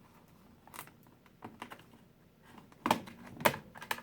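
Plastic snap clips of a laptop's back panel clicking as a pry tool works around the edge: a few light clicks, then two sharper snaps near the end as the panel loosens.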